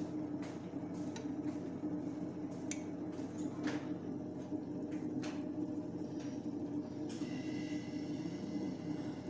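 Light clinks and knocks of a ladle against a ceramic serving bowl over a steady low hum. A brief high tone sounds about seven seconds in.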